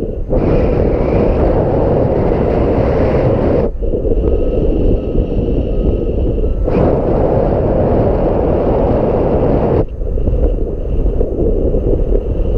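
Strong wind buffeting the microphone: a loud, dense rumble with no pitch, its character changing abruptly three times.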